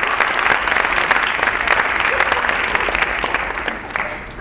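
Audience applauding, dense clapping that begins to die away near the end.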